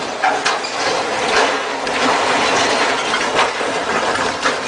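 Mobile crane on a barge overbalancing and toppling while holding a boat: a continuous rumbling, clattering crash of steel, with many irregular knocks, as the boat splashes down into the water.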